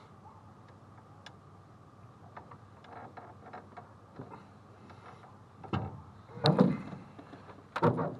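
Faint clicks, then a few loud knocks and scraping thuds, the loudest about six and a half seconds in, as a person shifts his weight on a clear plastic canoe's hull and frame.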